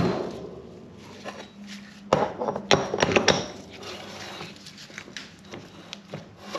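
Metal knocks and clicks as a cast open differential with spider gears is handled and worked down onto a splined stub on a steel workbench: one sharp knock at the start, then a cluster of clunks about two to three seconds in.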